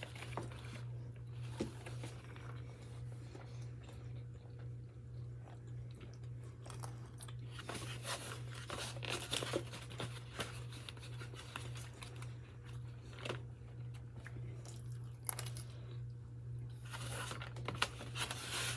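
People chewing and crunching food, with scattered short clicks and crackles of eating over a steady low hum.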